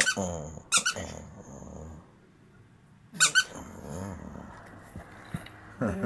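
Dog's squeaky toy squeaking sharply about three times, at the start, just under a second in and a little after three seconds, while the dog growls low around the squeaks as it keeps hold of the toy.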